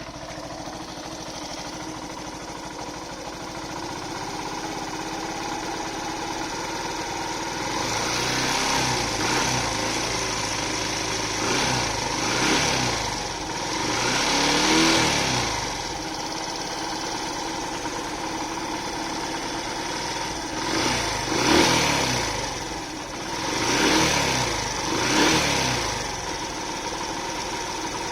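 Yamaha FZ V3 motorcycle's single-cylinder engine idling just after starting, then revved up and back down several times from about eight seconds in. The engine makes a rattling noise that the owner takes for timing chain noise.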